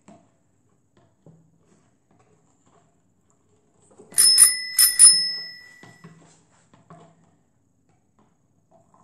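A bright bell-like ring struck twice, about three-quarters of a second apart, each ring sounding on with clear steady tones and fading out over about a second.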